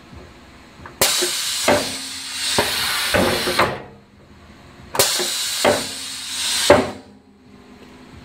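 Pneumatic cycle of a Northtech CFS-18R upcut saw: two sudden blasts of compressed-air hiss, each lasting two to three seconds, with knocks from the moving blade assembly inside each blast.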